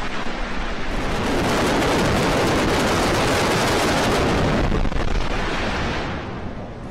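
Rocket engine firing on a static test stand: a loud, steady rushing noise of the exhaust plume, fading out near the end.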